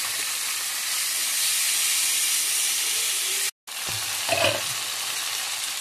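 Onion-tomato masala sizzling in hot mustard oil and a little water in an aluminium kadhai, stirred with a steel spatula: a steady frying hiss. It cuts out for an instant just after three seconds, then goes on, with a brief louder sound about a second later.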